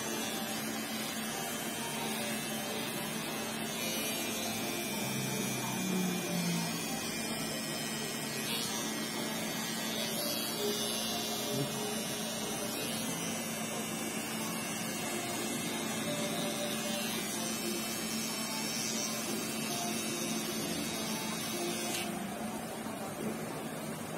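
Electric T-blade hair trimmer running with a steady buzz while cutting short hair. Its higher hiss drops away near the end.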